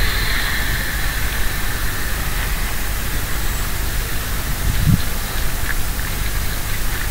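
Steady hiss of rain with a low rumble underneath.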